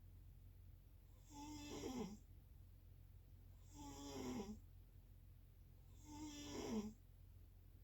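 Snoring in a steady rhythm: three snores about two and a half seconds apart, each a pitched note that falls in pitch, over a faint steady low hum.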